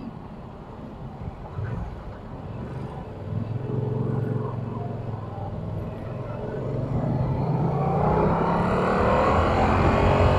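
2022 Yamaha R7's parallel-twin engine on its stock exhaust, running low and rough at first, then revving up with a rising pitch and growing louder from about seven seconds in as the bike accelerates.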